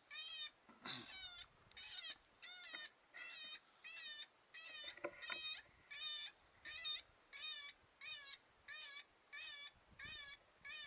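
Electronic predator call playing a high animal distress cry over and over, about one and a half cries a second, each cry rising and falling in pitch.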